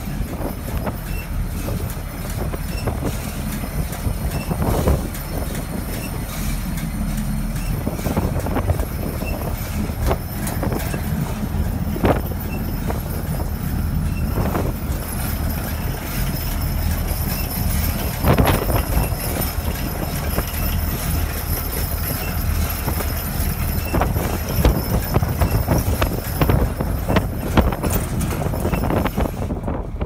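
Wind buffeting the microphone as a steady low rumble, with a few short knocks from handling.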